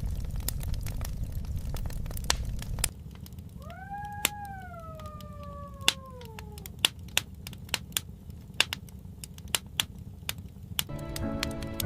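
Irregular sharp crackles over a low rumble, which drops about three seconds in. Midway, one long animal call that rises slightly and then slides slowly down in pitch over about three seconds.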